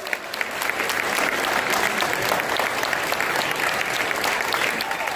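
A crowd applauding, many hands clapping steadily at once.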